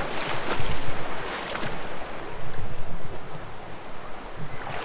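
River water rushing steadily, with wind buffeting the microphone and a few short splashy sounds in the first couple of seconds.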